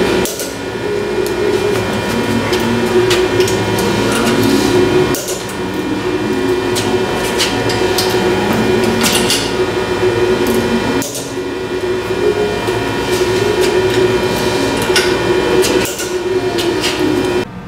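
Wrench clicking as the bolts clamping a bronze L-jib to a forging press's steel slide plate are tightened, with many short sharp clicks over a steady hum that drops out briefly a few times.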